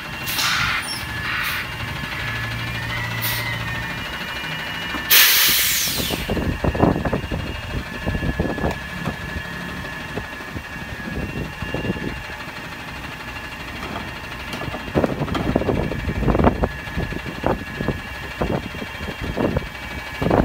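Natural-gas Autocar ACX garbage truck running at the curb, with a faint whine that wavers about three seconds in. About five seconds in comes a loud air brake hiss lasting about a second, and after it the engine runs on with irregular low rumbling thumps.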